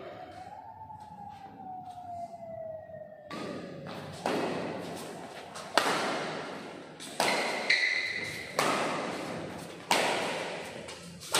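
Badminton rally: rackets hitting the shuttlecock about six times from about four seconds in, each a sharp hit with a ringing echo in a large hall, one to one and a half seconds apart.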